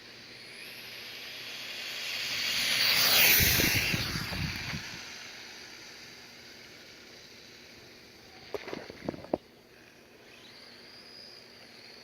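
Redcat Volcano RC truck with a Castle 3800 kV brushless motor on 2S flat out on a speed run, passing by: its high whine swells, peaks about three seconds in and falls in pitch as it goes away. A few sharp clicks come about three-quarters of the way through.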